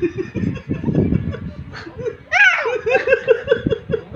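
A man laughing in quick low bursts, then about halfway a baby's sudden loud, high-pitched squeal, followed by a rapid run of short repeated laughing sounds.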